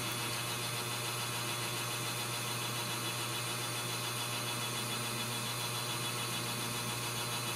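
Steady low hum with an even hiss, unchanging throughout: background room noise with no distinct event.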